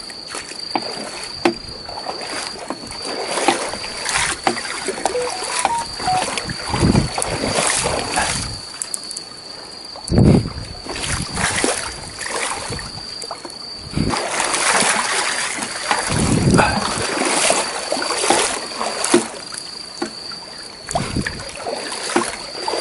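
Shallow seawater splashing and sloshing in irregular swishes as a landing net is swept through it to scoop up young mullet for bait.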